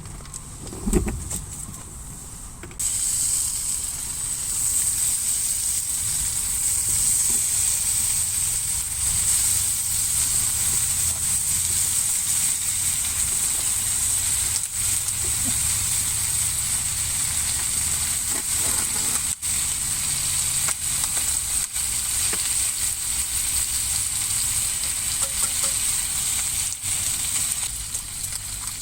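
Food sizzling in a hot pan, starting suddenly about three seconds in after a couple of knocks and going on steadily.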